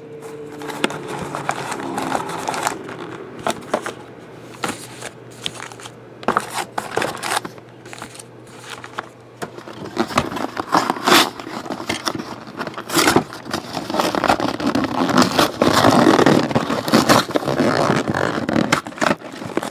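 Wrapped trading-card packs rustling and crinkling as they are pulled out of a cardboard hobby box and set down in stacks, with scraping and light taps of cardboard against the table. The rustling grows denser and louder in the second half as the emptied box is handled.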